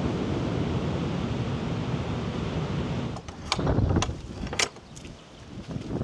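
Steady rush of strong storm wind and surf. About three seconds in the noise drops and turns gusty, with wind buffeting the microphone and a few sharp clicks.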